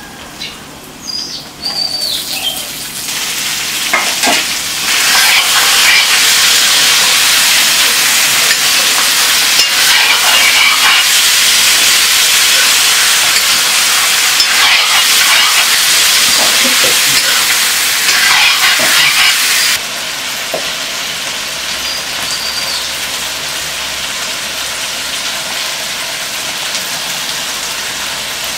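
Chicken pieces sizzling as they fry in a hot wok, with a ladle stirring and scraping them. The sizzle rises sharply a few seconds in and drops abruptly to a lower, steady level about two-thirds of the way through.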